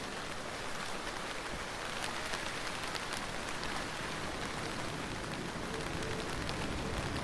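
Steady heavy rain falling and pattering on a surface, a dense even hiss with many separate drop hits.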